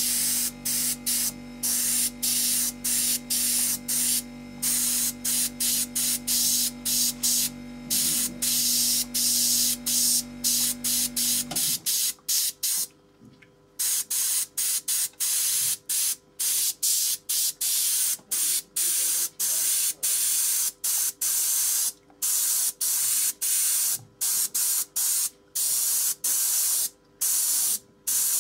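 An airbrush sprays in many short hissing bursts as the trigger is pressed and released, roughly once or twice a second. Under the early bursts a steady low hum stops suddenly about twelve seconds in.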